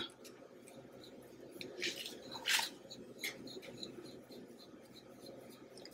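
Silicone whisk stirring dry brown sugar and cinnamon in a glass bowl: faint gritty scraping, with two louder scrapes about two seconds in.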